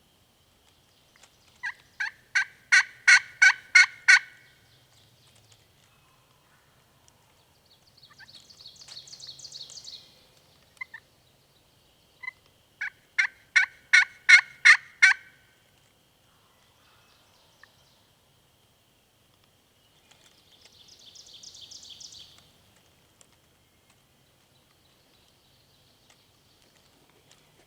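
Two series of loud turkey yelps, about three notes a second and seven or eight notes each, some ten seconds apart. Between and after them come two fainter, higher, raspy sounds of about two seconds each.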